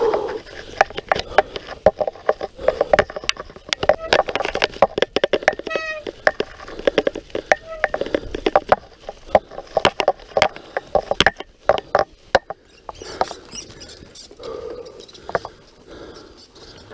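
Mountain bike clattering over a rough forest trail: a dense, irregular run of sharp knocks and rattles from the bike and its handlebar-mounted camera. A short squeal comes about six seconds in.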